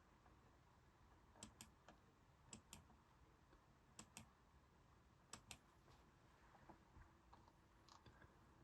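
Faint clicking at a computer, mostly in quick pairs spaced a second or so apart, as someone searches for a file to bring up on screen.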